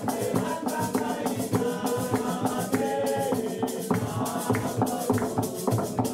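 Opening theme music: a melody of pitched notes over quick, even percussion ticks.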